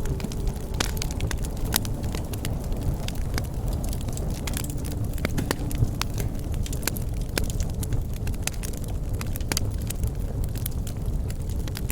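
Wood fire crackling and popping, with many sharp irregular snaps over a steady low rumble of burning.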